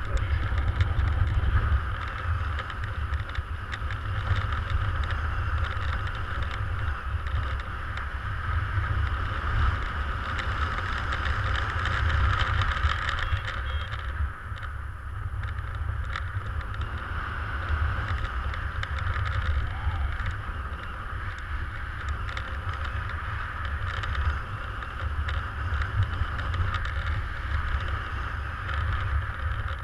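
Rushing airflow of a paraglider in flight buffeting the microphone: a steady low rumble with a hiss that swells and eases unevenly.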